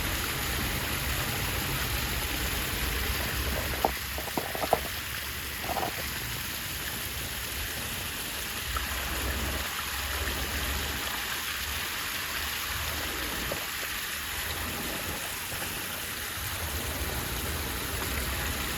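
Waterfall pouring steadily, a constant rush of falling water, with a few short sharp clicks about four to six seconds in.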